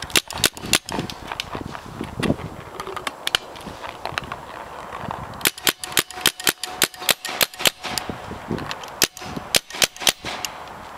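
Spyder Shutter paintball gun firing in quick strings of sharp shots, about four a second, with only a few single shots in a lull of several seconds before the second string.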